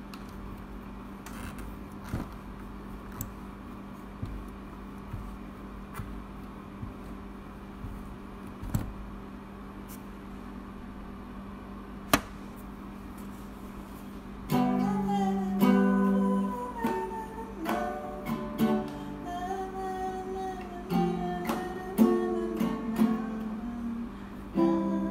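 Small acoustic guitar being played: for about the first half only a steady low hum and a few soft clicks, then plucked and strummed notes from about halfway in.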